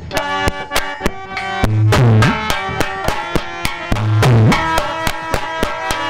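Instrumental folk music between sung lines: a melody of held notes over quick hand-drum strokes. The barrel drum's deep bass strokes slide in pitch about every two seconds.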